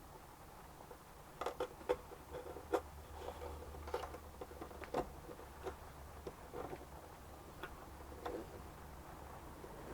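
Scattered light clicks and taps of tools and wood being handled at a violin maker's bench, irregular and quiet, over a faint low hum.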